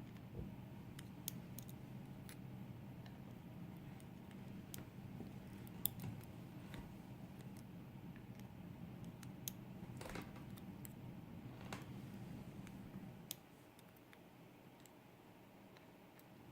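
Scattered small metallic clicks and ticks of tweezers and lock pins being handled while a dimple lock is taken apart and its pins and springs are removed. A low steady hum underneath drops away about thirteen seconds in.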